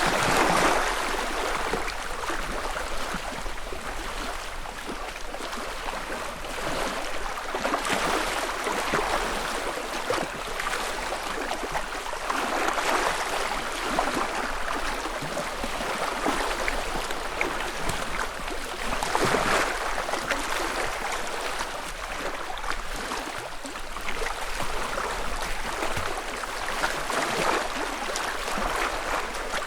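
Small lake waves lapping on the shore, a continuous wash that swells into a soft splash every few seconds.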